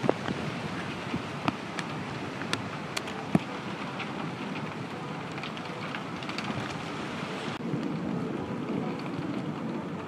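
Steady rain hiss with sharp ticks of single drops hitting a nearby surface. Near the end a deeper rush of wind comes in under the rain.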